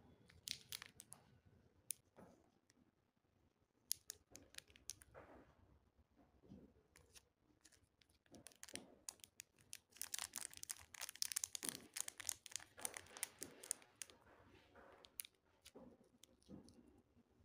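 Plastic candy wrappers crinkling and crackling as they are handled, in scattered rustles that grow into a dense spell of crackling midway through.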